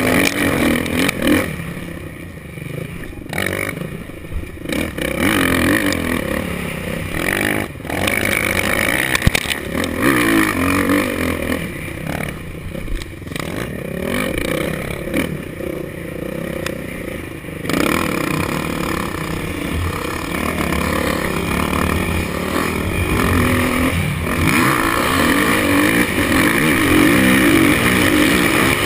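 Motocross bike engine heard from the rider's helmet camera, revving up and down as the throttle opens and shuts through corners and over jumps. It eases off around two seconds in and again around twelve seconds, then is held harder from about eighteen seconds.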